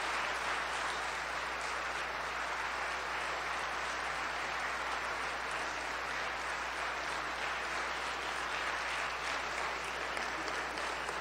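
Audience applauding steadily, a dense continuous clapping that eases off slightly toward the end.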